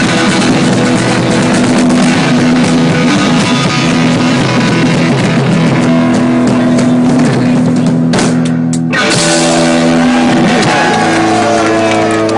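Live rock band with electric guitars and drums playing the closing section of a song. About eight seconds in there is a brief break, then a held final chord rings out near the end.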